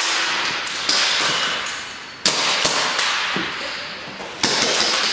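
Airsoft pistols firing single shots: several sharp cracks a second or more apart, each ringing on in a long echo through a large, empty warehouse.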